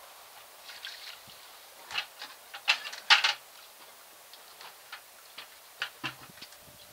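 Gravel and small stones rattling and clattering into a sluice hopper as a bucket of sample is emptied, with the loudest run of clatters about two to three seconds in and scattered single clicks before and after.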